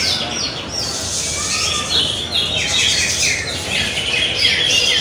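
Several caged green leafbirds (cucak ijo) singing at once in a bird-song contest: a dense, continuous chatter of rapid, overlapping short sliding notes.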